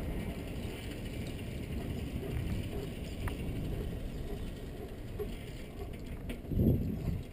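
Bicycle coasting, its rear freewheel ratchet ticking over the rumble of tyres on asphalt, with a louder low rumble about six and a half seconds in.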